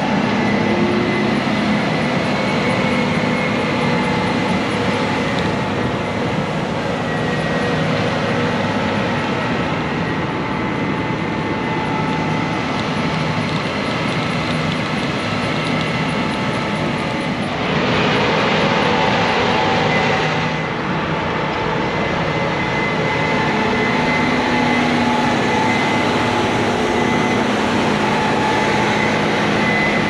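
Case IH combines driving past, their diesel engines running steadily with a high whine over the engine note. A louder stretch comes about two-thirds of the way through.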